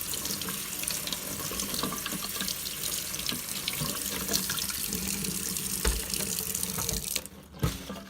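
Kitchen sink tap running steadily while strawberries are washed under it; the water shuts off about seven seconds in, followed by a brief knock.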